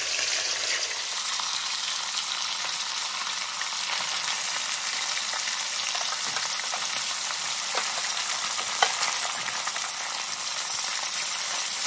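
Whole sea bass freshly laid into about two cups of hot oil in a cast iron wok, frying with a steady sizzle and scattered crackles, one sharper pop about nine seconds in.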